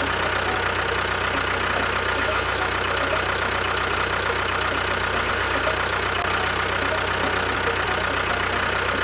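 A small engine idling steadily, with a steady high whine over the low running note.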